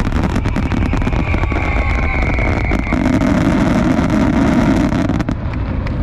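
Fireworks crackling densely over a steady rumble.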